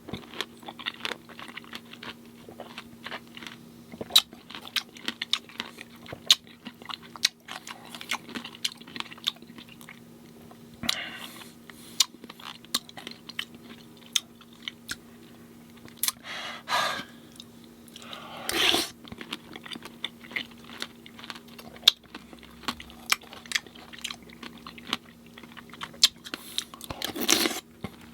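A person chewing and biting fresh fruit in coconut water close to the microphone: many sharp mouth clicks and crunches, with a few longer, louder sounds standing out about four times.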